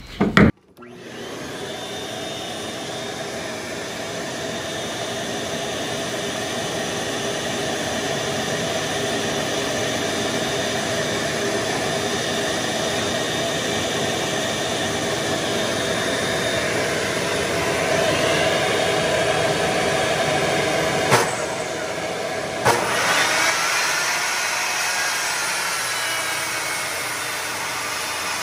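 SKIL jobsite table saw's universal motor running with the blade spinning, a steady whine with many tones. Two sharp clicks come a little past two-thirds of the way in, and the pitch wavers near the end.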